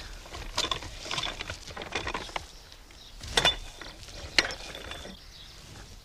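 Hand-pumped Daisy No. 2 bellows vacuum cleaner being worked: irregular clacks and creaks from its crank and bellows, with short puffs of air and two sharper knocks in the second half.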